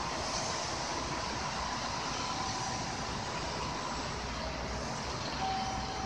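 Steady, even rumble of railway-station ambience, with faint whining tones that come and go.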